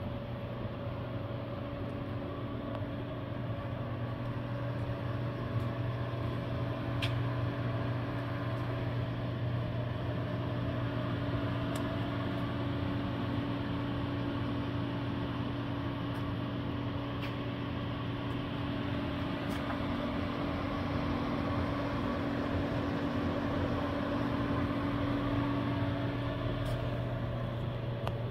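Cyclematic CTL-618EVS toolroom lathe running steadily, a machine hum with a whine and a few faint clicks; the whine drops out near the end.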